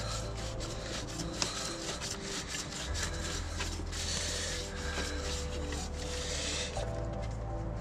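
Background music with a bass line, over a rough, continuous rubbing or scraping sound that is strongest in the middle and later part.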